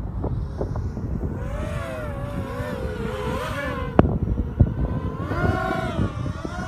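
Nighthawk 250 racing quadcopter's Baby Beast motors on a 4S battery whining in flight, their pitch rising and falling with the throttle, over heavy wind noise on the microphone. A sharp click about four seconds in.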